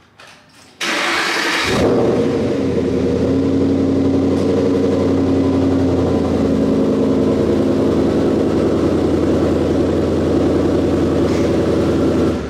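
Harley-Davidson Breakout's Milwaukee-Eight V-twin being started after weeks of sitting: about a second in, a short loud burst of cranking and catching, then the engine settles into a steady idle. The idle fades out right at the end.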